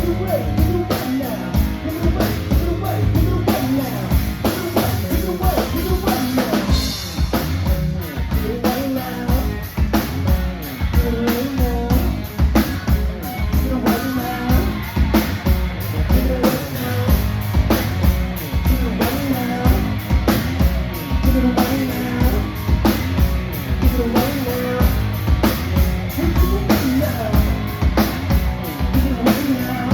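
Live band playing with a full drum kit driving a steady beat, bass drum and rimshots prominent under bass and melodic parts.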